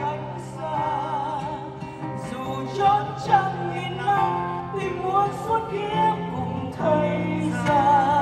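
Female vocalist singing with a live band, holding long notes with a wide vibrato.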